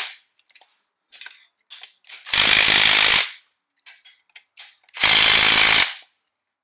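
Cordless impact wrench hammering in bursts of about a second, driving the threaded rods of a coil spring compressor to squeeze the spring on a GM truck strut assembly. One burst ends right at the start, then two more follow about two and a half seconds apart, with small clicks in between.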